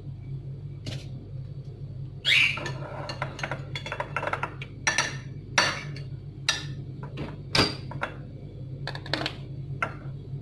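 A caged pet bird squawking and chirping in a string of short, sharp calls, the loudest about two seconds in, mixed with light clinks of kitchenware.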